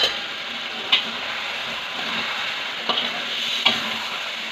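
Sweet potato frying in oil and sugar in a wok: a steady sizzle, with a spatula clicking against the pan a few times as it is stirred.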